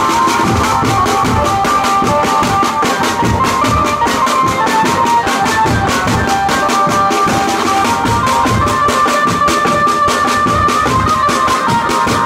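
A Konkani benjo party band playing: a fast, dense beat on snare drum, side drum and a large stick-beaten drum under a melody of held notes that steps from note to note, the lead of the amplified benjo.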